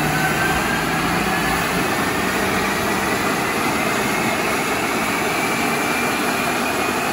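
Volvo S60 T5's turbocharged five-cylinder engine and drivetrain running hard on a chassis dynamometer during a pull: a loud, steady din with a whine that rises slowly in pitch throughout.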